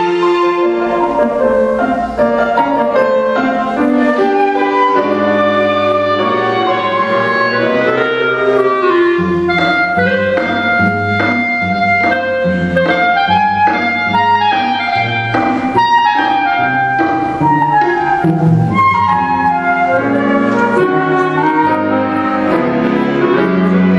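Small chamber ensemble playing a classical piece, with flute and cello among the instruments: several lines of quick, changing notes move together without a break.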